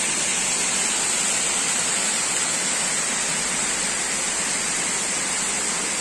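Waterfall pouring: a steady rush of falling water, with a steady high-pitched hiss above it.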